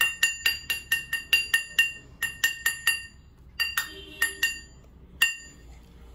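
A baby banging a metal plate with her hand: a quick run of ringing clinks at about four a second, a pause, four more, and a last one about five seconds in.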